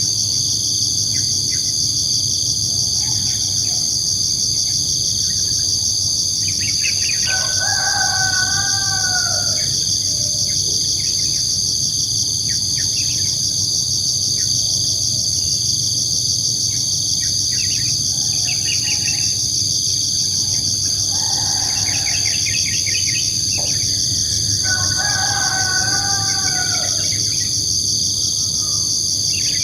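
Steady high-pitched chorus of insects, with a rooster crowing twice, about seven seconds in and again about twenty-four seconds in, and scattered short bird chirps.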